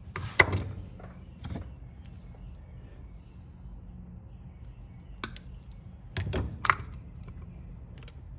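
Tools and small trimmer parts being handled during a fuel line repair: a few short knocks and clatters about half a second in, again at a second and a half, and a cluster around six seconds, over a faint steady hum.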